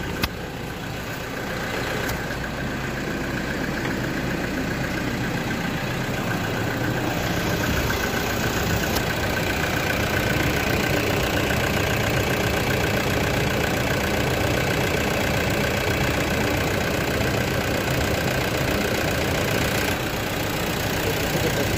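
Toyota Innova's turbo-diesel engine idling steadily after start-up to let the oil reach the head. It grows louder over the first several seconds as it is approached at the open bonnet, then holds level.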